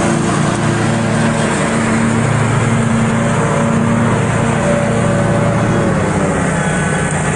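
Small engines of stand-on commercial lawn mowers running steadily at working speed as the mowers drive across a lawn.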